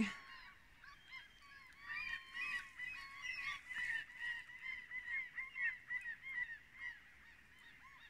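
A flock of birds calling: many short, overlapping calls, thickest from about two seconds in until near the end.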